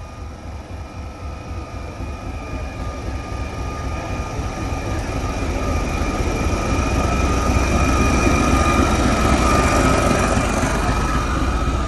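Class 73 electro-diesel locomotive under way, heard from inside the cab, with its English Electric diesel engine working. The rumble builds steadily louder over the first eight seconds or so and then holds, with a steady high whine throughout.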